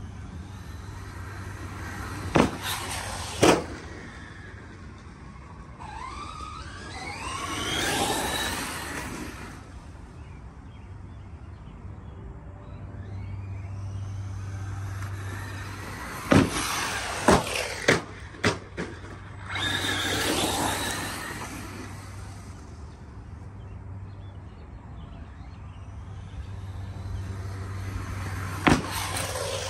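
Arrma Mojave 4S RC short course truck's brushless electric motor whining, rising in pitch as it speeds up and passing by several times, with sharp knocks as the truck lands off the ramps, several in quick succession about midway.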